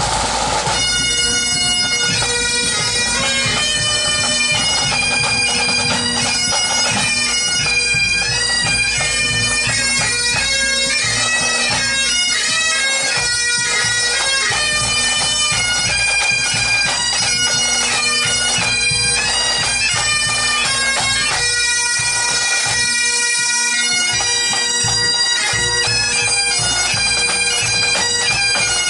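Pipe band of Highland bagpipes playing a march: steady drones under the chanter melody, which sets off about a second in, with the band's drums beating underneath.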